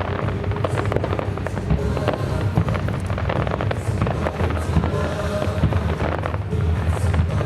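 Fireworks bursting and crackling in quick succession over loud show music, with a constant deep rumble underneath.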